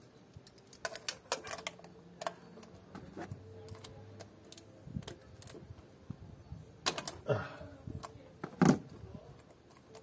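Scattered small clicks and clinks of hands working spark plugs, a ratchet and ignition leads on a car engine, with a couple of louder knocks near the end.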